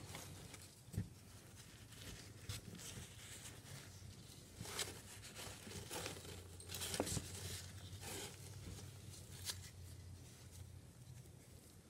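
Faint rustling and scraping of shredded cardboard bedding as a gloved hand stirs it in a plastic worm bin, in irregular short bursts, over a low steady hum.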